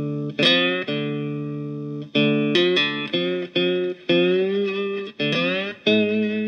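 Electric one-string diddley bow played with a slide through an amplifier: a run of plucked notes, several sliding up into pitch, each ringing out and fading before the next.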